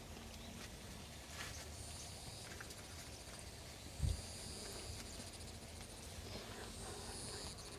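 A high-pitched animal trill repeating in several bouts of about a second each, with one low thump about four seconds in.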